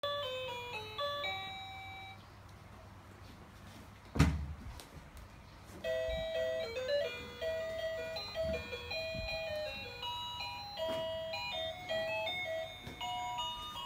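A simple electronic beeping tune of single stepped notes from a pink toy cash register. The tune stops after a second or two, a single thump comes about four seconds in, and the tune starts again about six seconds in.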